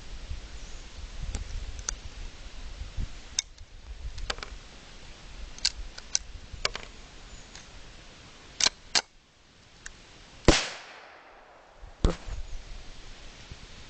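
Replica Glock pistol being handled with a series of sharp metallic clicks, then firing a loud shot about ten and a half seconds in, its report ringing away over about a second, and a second loud crack about a second and a half later.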